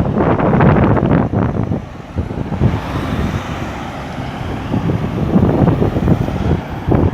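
Road traffic moving through a roundabout, with heavy wind buffeting the microphone. A vehicle goes by around the middle.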